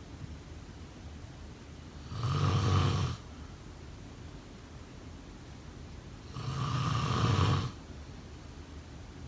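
A person snoring in sleep: two loud snores, each about a second long and about four seconds apart, with quiet stretches between.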